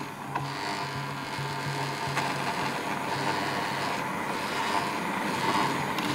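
Electric kitchen mixer kneading a yeast dough, its motor running steadily with a low hum that pulses about twice a second.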